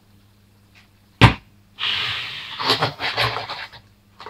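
A sharp knock, then about two seconds of uneven rubbing and scraping, as a small foam RC boat is set down and shifted by hand on a cardboard surface.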